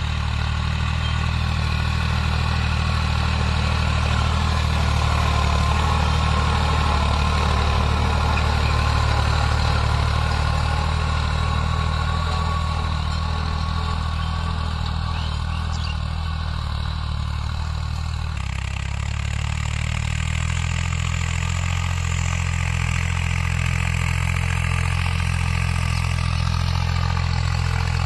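Farm tractor's diesel engine running steadily under load as it pulls a rotavator through tilled soil. The sound changes abruptly about two-thirds of the way in.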